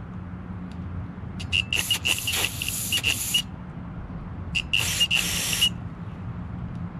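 Aerosol carburetor cleaner sprayed through its red extension straw into the jet passages of a lawn tractor carburetor. It comes in two hissing bursts, the first about two seconds long and the second about one second, each with a thin whistle in the spray.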